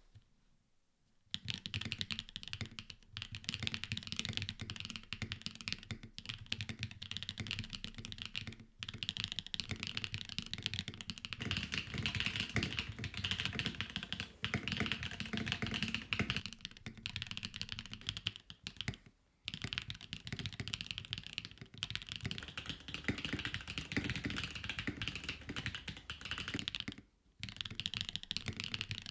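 Mode 65 mechanical keyboard with Owlab Neon switches, a POM plate and PBT keycaps being typed on quickly and continuously, a dense run of clacky keystrokes. Typing starts about a second in and stops briefly three times, about a third of the way through, about two-thirds through and near the end.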